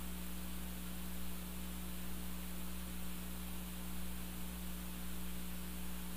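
Steady low electrical hum under an even hiss, with no other sound rising above it.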